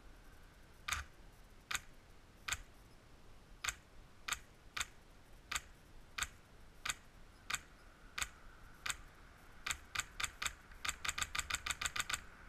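PolarStar compressed-air (HPA) airsoft rifle, set at 80 psi, firing about sixteen single shots that crack sharply and are spaced under a second apart. Near the end comes a quick string of about ten shots.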